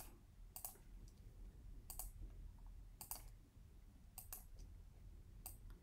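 Faint computer mouse clicks, single and in quick pairs, about once a second.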